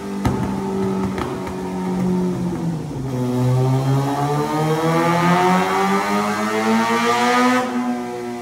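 2014 Suzuki GSX-R 750 inline-four with a cat-delete M4 slip-on exhaust, running on a dyno: a few sharp cracks in the first second, a dip in pitch, then a steady pull with the engine note climbing for about four seconds. Near the end the throttle shuts, and the harsh top of the sound drops away while the wheel spins on.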